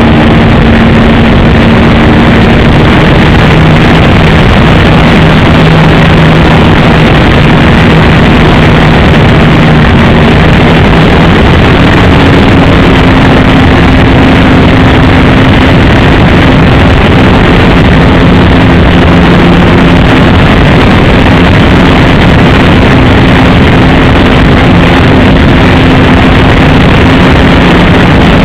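RC Piper J-3 Cub model airplane's engine droning steadily in flight, its pitch stepping up about a third of the way through, under a heavy hiss from a recording driven to full level.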